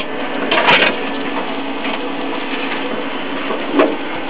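Gasless MIG welder's cooling fan running with a steady hum, while the machine's hinged cover is opened with a few clicks and knocks, the loudest just under a second in and another near the end.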